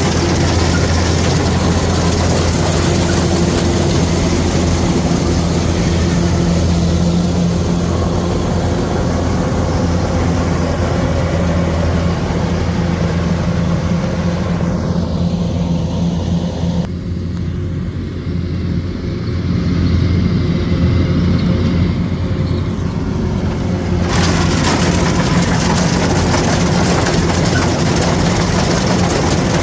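Kubota rice combine harvester running steadily, a constant engine hum under a broad mechanical hiss. From about 17 to 24 seconds in the sound turns duller as the hiss drops away, then returns.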